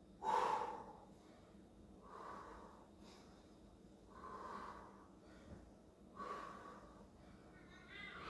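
Faint, heavy breathing of a woman under exertion, with a forceful exhale about every two seconds in time with her knee-up, leg-extend-back reps.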